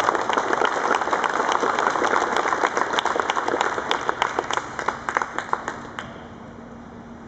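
Applause, many hands clapping, thinning out and stopping about six seconds in.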